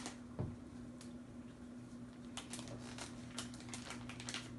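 Plastic snack packaging crinkling and crackling as it is handled, in two short bursts of quick clicks, over a steady low electrical hum.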